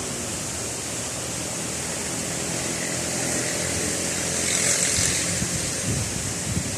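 Heavy rain pouring in a steady hiss with strong wind, swelling in a gust a little over four seconds in; from about five seconds on, wind buffets the microphone in low rumbling thumps.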